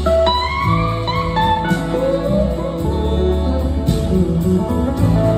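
Live rock band playing, with an electric slide guitar lead gliding up into held notes over a steady bass.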